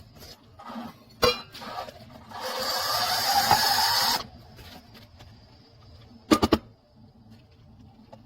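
Calphalon Temp iQ espresso machine letting out a loud hiss lasting about two seconds, with a faint rising tone in it. A sharp knock comes just before it, and a quick run of knocks follows a couple of seconds later.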